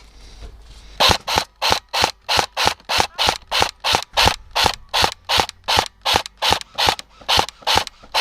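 Airsoft gun firing a steady string of single shots, about three a second, starting about a second in after a brief pause.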